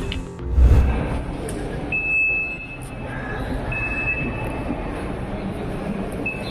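Ambient noise of a crowd of visitors milling about, with a brief low thump just under a second in and a faint high steady tone that comes and goes several times.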